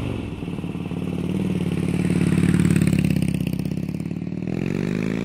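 Harley-Davidson V-twin motorcycle engine running and being revved, swelling in the middle and easing off, with the revs climbing again near the end.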